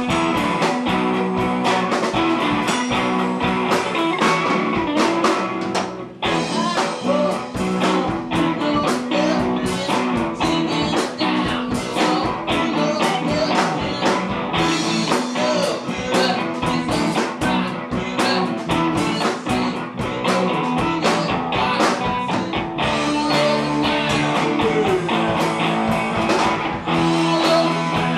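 Rock band playing: electric guitars, bass guitar and drums with a steady beat, and a male singer at the microphone. There is a short break in the playing about six seconds in.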